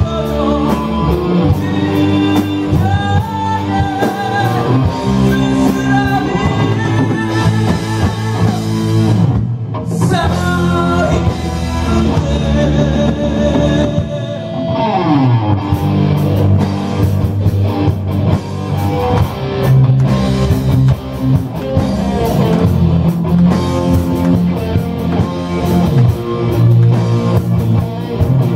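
A rock band playing live: electric guitars and drums with a male voice singing over them. About a third of the way in the sound briefly thins, and about halfway there is a falling slide in pitch before the full band comes back.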